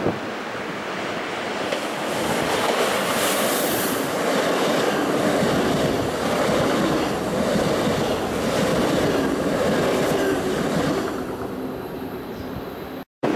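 SBB ICN tilting electric train running past at speed: a loud rushing of wheels on rails with a rhythmic clatter over the rail joints. It builds about two seconds in and fades as the train draws away near the end.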